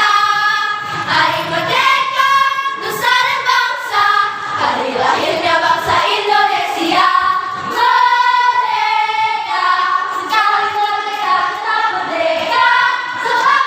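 A choir singing together in high voices.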